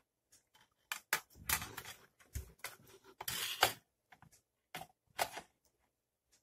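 Hands handling a plastic blood pressure monitor's case and a thin wire: a string of small clicks and taps, with a low knock about two and a half seconds in and a brief scrape soon after.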